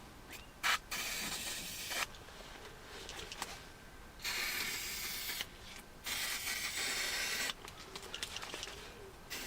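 Aerosol spray can sprayed in three bursts of about a second each, with a click just before the first.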